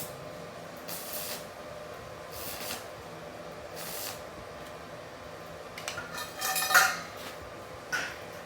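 Metal parts being handled, with a few short hissing bursts and then a cluster of clinks and knocks with a brief metallic ring, the loudest near the end.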